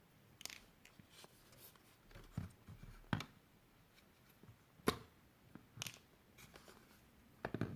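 Faint scattered plastic clicks and light handling noise as the orange plastic shipping parts are pulled off a new laser printer toner cartridge, with sharper snaps about three and five seconds in.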